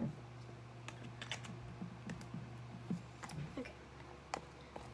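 Light, irregular plastic clicks and taps, several a second, from handling a plastic activator bottle and its cap and stirring slime in a clear plastic tub.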